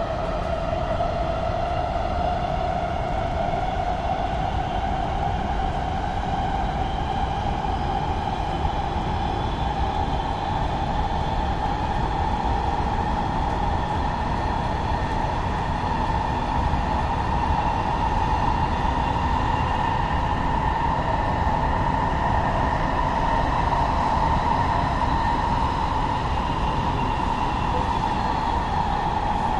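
Los Angeles Metro Rail electric train running, a steady low rumble from the wheels and track with an electric motor whine that rises slowly in pitch as the train gathers speed, levelling off near the end.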